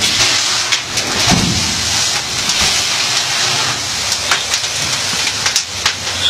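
A large fire burning: a steady hissing rush with scattered crackles and pops.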